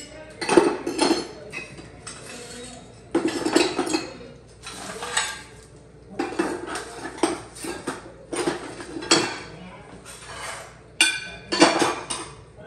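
Dishes, pots and metal cutlery clattering and clinking as they are handled and moved about, in irregular bursts a second or two apart.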